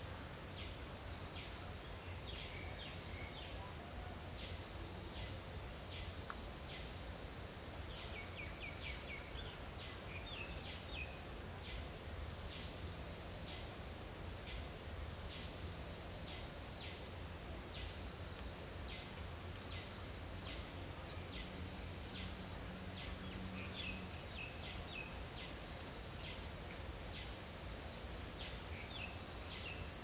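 Outdoor ambience of a steady, high-pitched insect drone, such as crickets or cicadas, with small birds giving short, high chirps again and again throughout.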